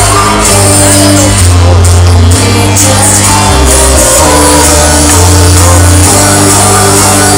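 Loud electronic dance music with a heavy bass line of held notes that shift pitch every second or so.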